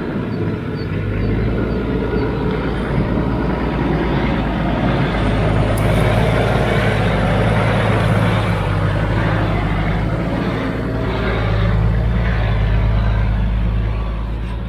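Toyota Land Cruiser HZJ78's 4.2-litre six-cylinder diesel engine running steadily as the truck drives along a rough off-road track, with tyre and body noise over the engine note.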